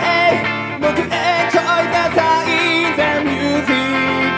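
Live rock band playing, with electric guitar to the fore and a voice singing at times.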